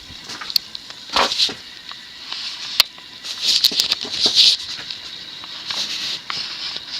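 Universal (TAT) 52-inch spinner ceiling fan running on high. Its loud, noisy bearings give an irregular clicking and rattling, over a faint somewhat high-pitched running hum.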